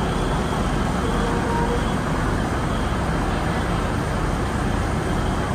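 Steady low background rumble, an even noise with no distinct events.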